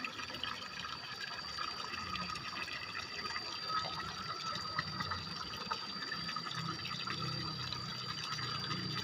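Steady trickle of shallow muddy water, with a constant thin high tone over it. A low rumble builds from about two seconds in.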